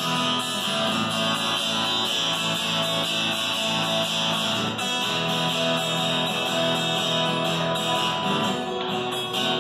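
Acoustic guitar strummed in a steady chord pattern, played without singing.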